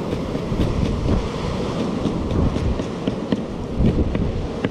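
A kitchen knife chopping fresh green herbs on a wooden cutting board: a quick, uneven run of short taps, a few a second. Strong wind rumbles on the microphone underneath and is the loudest sound.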